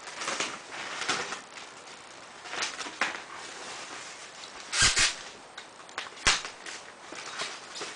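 Handling and shuffling noises from assembling a solar panel kit: scattered scuffs and rustles, with two sharp knocks about five seconds in and again a second and a half later.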